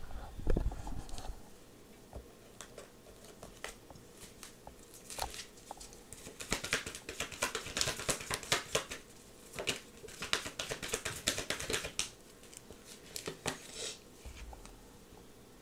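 Tarot cards being shuffled and handled by hand: faint runs of quick clicks and flicks, sparse at first and thickest from about five to twelve seconds in.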